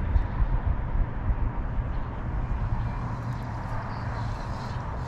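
Wind buffeting the microphone: a steady, fluttering low rumble with a faint hiss above it.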